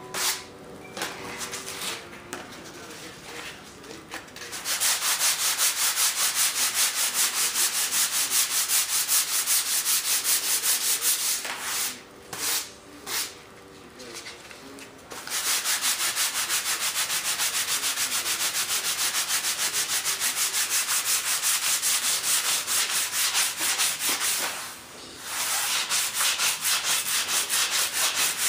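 Coarse sandpaper worked back and forth over an epoxy-glued composite wing in fast, even rasping strokes, knocking down the glue ridges to get the surface flat. The strokes are lighter for the first few seconds and stop briefly twice.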